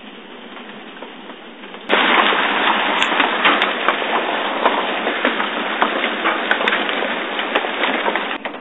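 Hailstones pelting down in a dense clatter of sharp ticks. The hail comes on suddenly about two seconds in, after a lighter patter, and stops abruptly near the end.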